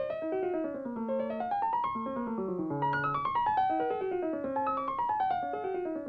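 Background music: a piano playing repeated falling runs of notes.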